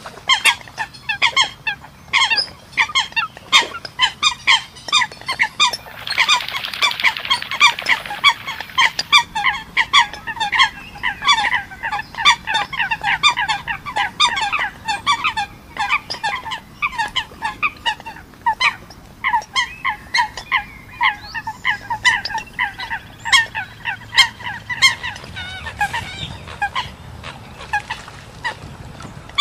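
Eurasian coots calling: a dense, unbroken run of short, sharp call notes, several a second, with more than one bird overlapping.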